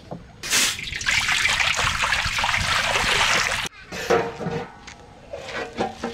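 Liquid rushing and trickling in a large metal wok over a wood fire for about three seconds, cut off abruptly. Scattered rustles and light knocks follow.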